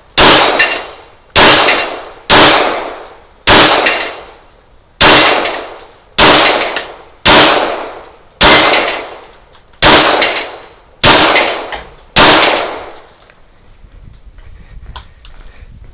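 9mm Glock 17 Gen 4 pistol firing about eleven shots, roughly one a second, each with a ringing tail. It then stops for the last few seconds.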